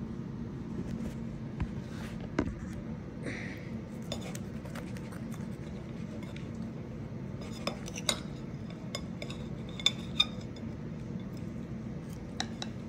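A kitchen knife and plate being handled while a sandwich is cut and picked up: scattered light clicks and clinks, the sharpest about two, eight and ten seconds in, over a steady low hum.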